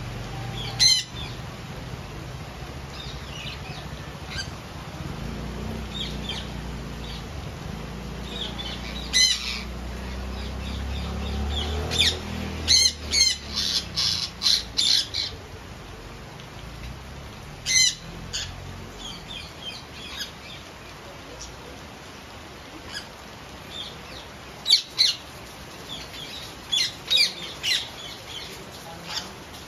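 Indian ringneck parakeets squawking, sharp loud calls coming in bunches, over the steady hiss of rain falling on the aviary. A low rumble underneath fades out about two-thirds of the way through.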